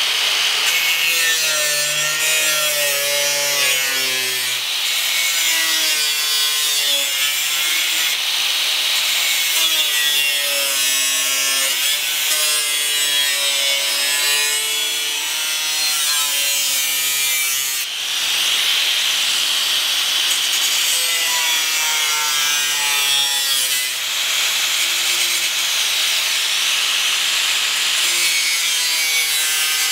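A 4.5-inch angle grinder with a thin metal-cutting wheel cutting through a car's steel fender arch: a loud, continuous grinding whine whose pitch wavers as the cut loads the wheel, easing off briefly twice in the second half.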